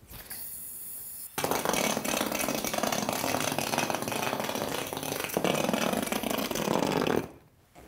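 A spinning plastic yoyo: a soft whir while it sleeps on the string, then about a second and a half in it touches the hard floor and rolls along it with a steady rattling buzz, stopping suddenly near the end.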